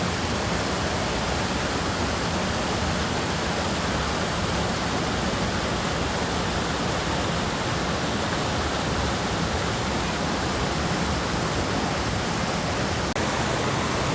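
Waterfall on the Amnicon River rushing steadily, an even full-range wash of falling water that dips for an instant near the end.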